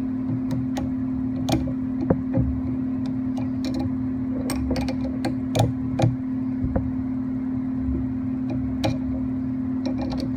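Scattered small clicks and light metal knocks of tools and hands working on a mini lathe's carriage while its gib screws are adjusted, over a steady low background hum.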